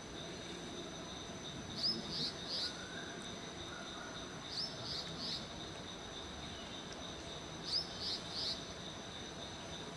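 A bird calling in quick sets of three short, high chirps, a set about every three seconds, over a steady high-pitched insect drone.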